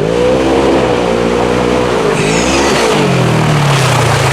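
Polaris RZR XP 1000 side-by-side's parallel-twin engine revving: the revs climb quickly, hold high with a brief dip about two seconds in, then fall back near the end, over a steady hiss.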